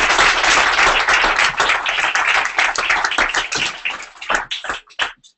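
Audience applauding, dense at first, then thinning to a few scattered claps that die out about five seconds in.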